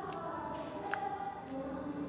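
Slime being pressed and squished by hand, giving two small sharp clicking pops, over faint background singing.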